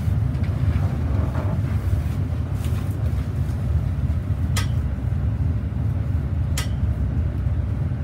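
Steady low rumble, with two sharp clicks about two seconds apart in the second half, as hands press on the upper back of a patient lying face down on a chiropractic table.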